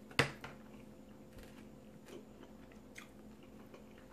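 A fork clinks sharply against a plate once about a quarter second in. After that come quiet chewing and a few faint small clicks from the fork, over a faint steady hum.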